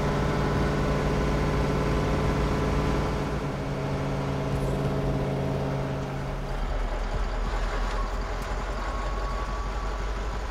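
Dennis RS130 fire engine's engine running steadily while driving, a constant drone heard from inside the cab. About six and a half seconds in, the sound changes to a lower, plainer drone.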